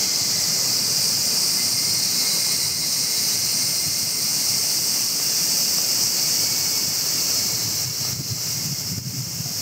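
Steady insect chorus, a high buzzing hiss that holds unbroken, with a low rushing noise beneath it.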